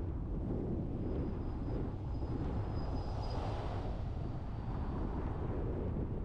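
Steady low rumble of wind and road noise from a car driving. A thin, faint high whine and a short swell of hiss come around the middle as something passes.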